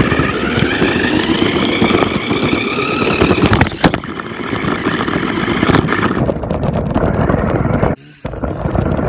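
A toy RC car's electric motor whines and climbs in pitch as the car speeds up, over heavy rattling from its tyres and chassis on rock, heard up close from a phone riding on the car. A couple of sharp knocks come about four seconds in, and the sound cuts out for a moment near the end.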